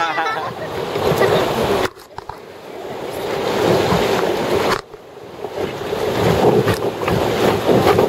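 River whitewater rushing around a raft, a loud steady noise with wind buffeting the microphone. It cuts out sharply twice, about two seconds in and again near five seconds, each time building back up.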